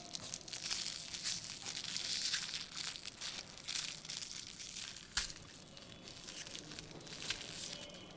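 Aluminium foil crinkling and tearing as a small foil-wrapped packet is unwrapped by hand, a dense run of crackles with one sharp crack about five seconds in.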